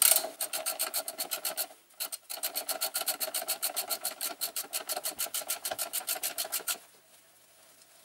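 Socket ratchet clicking rapidly and evenly as it runs the front axle bolt of a Kawasaki Z1000 in to take up the slack. The clicks pause briefly about two seconds in and stop about seven seconds in.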